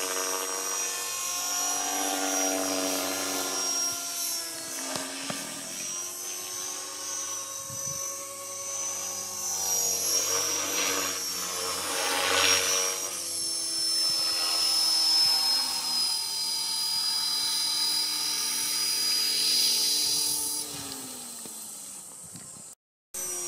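Radio-controlled model helicopter flying, its motor and rotor whine shifting in pitch as it manoeuvres. Near the end, after it has landed, the high whine stops and the pitch slides down as the rotor winds down.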